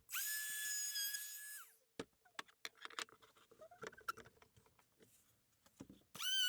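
Router fitted with a roundover bit, running with a steady high whine for under two seconds, then cutting off. Light clicks and knocks follow. Near the end the router starts again, its whine rising as it spins up to speed.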